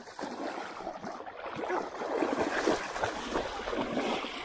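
Legs wading through shallow river water, splashing and sloshing with each step, louder from about two seconds in.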